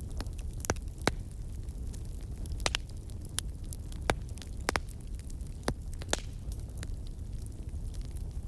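Wood fire burning, with irregular sharp crackles and pops over a low steady rumble.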